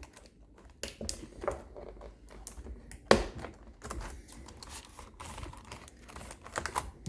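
Scattered clicks and taps from the newly fitted keyboard of an Acer Aspire 5810T laptop being pressed down into its seat, with one sharper click about three seconds in.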